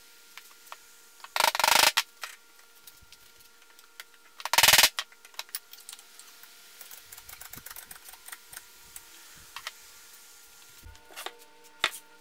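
Hewing axe and its wooden handle being worked and knocked about at a wall rack: two loud, short bursts of clattering knocks, then scattered light clicks, over a faint steady hum. Piano music begins near the end.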